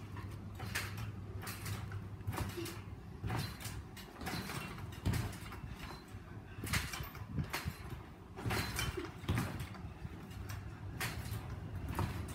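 Trampoline springs creaking with each bounce, repeating about once or twice a second, with the dull thump of feet landing on the mat.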